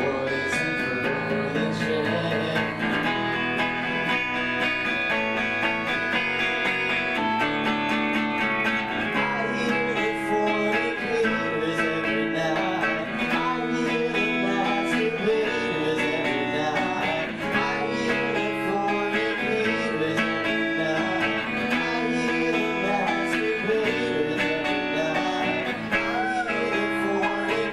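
A band playing a song live on strummed, amplified guitars, without a drummer.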